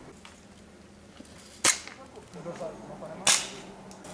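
Two sharp airsoft gun shots, about a second and a half apart, each with a short tail after it.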